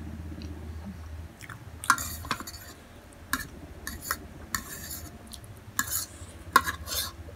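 Eating utensils on a bowl of Samyang instant noodles: about eight short, sharp clinks and scrapes from about two seconds in, with a low hum that drops away just over a second in.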